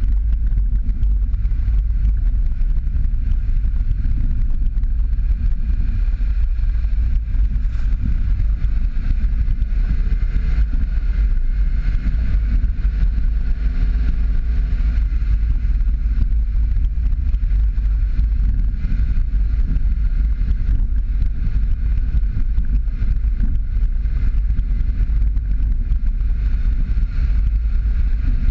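Jeep Patriot driving along a dirt road, a steady low rumble of engine and tyres on the dirt.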